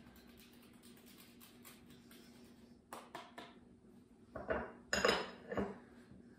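Faint scraping of a block of Parmesan on a handheld grater, then a run of clinks and knocks as the grater and serving utensils are set down against a ceramic serving bowl, loudest about five seconds in.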